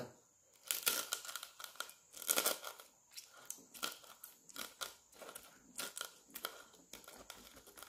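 A crab being crushed into chillies with a pestle in a wooden mortar. It gives irregular crunching strokes as the shell breaks, loudest in the first couple of seconds, then lighter grinding crunches.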